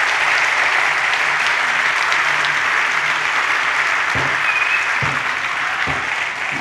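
A large audience applauding steadily; the dense clapping holds an even level throughout.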